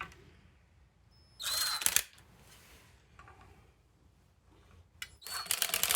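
Ratchet wrench run down on the bolts of a Subaru clutch pressure plate in two short bursts of rapid clicking, about a second and a half in and again near the end, tightening them evenly and slowly.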